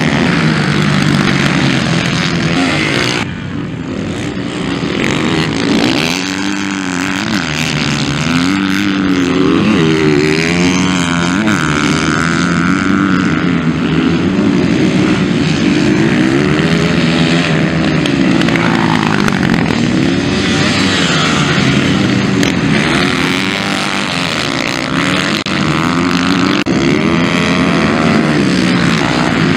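Several motocross bike engines revving hard as the bikes ride laps of a dirt track, their pitch rising and falling over and over as the riders open and close the throttle.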